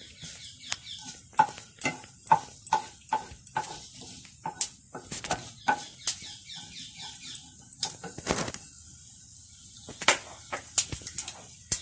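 Mustard seeds and a broken dried red chilli crackling in hot oil: irregular sharp pops over a thin sizzle, with a wooden spatula stirring in the pan. The popping is the sign the oil is hot enough for the tempering.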